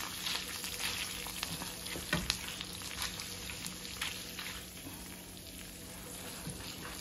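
Refried beans frying in ground-beef grease in a stainless steel skillet, sizzling steadily while a spoon stirs and scrapes through them. The spoon clicks against the pan now and then, most sharply about two seconds in, and the sizzle eases slightly in the second half.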